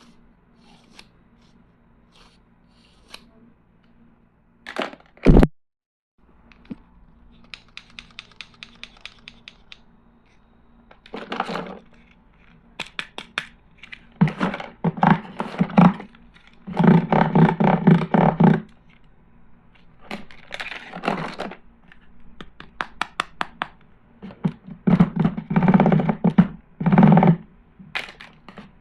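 Plastic toy tools and their packaging being handled: scattered clicks and knocks, a quick run of even ticks, and several short bursts of clattering and scraping.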